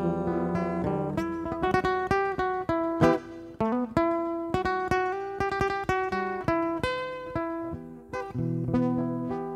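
Acoustic guitar played solo as an instrumental interlude between sung lines, a run of single plucked notes and quick melodic phrases with fading notes.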